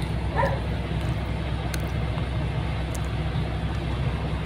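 Heavy lorry's diesel engine idling with a steady low rumble. There is a brief squeak about half a second in, and a couple of faint clicks.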